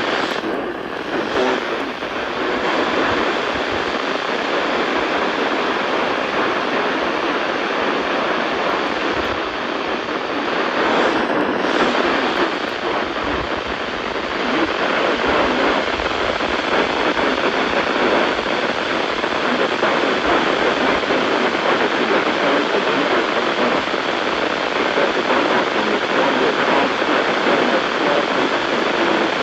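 A steady, loud hiss of noise, even across the range, with no tone or rhythm in it. It dips briefly near the start.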